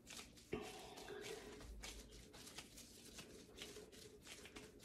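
Faint, irregular rustling and soft squishing of plastic-gloved hands kneading a ball of bubble bath dough.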